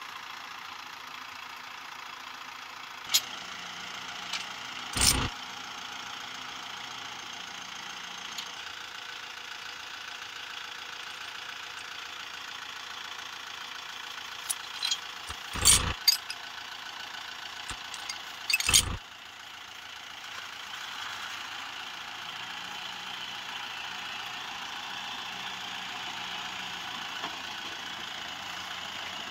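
Kubota M6040SU tractor's diesel engine running steadily, with several sharp knocks or clunks. The engine gets a little louder in the last third.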